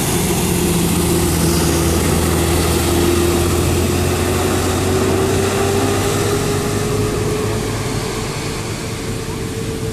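Large bus engine running close by: a steady low engine hum under a whine that slowly rises in pitch, with road and air noise over it.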